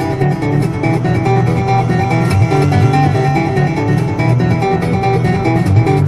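Background music: a plucked guitar tune with a low bass line under it.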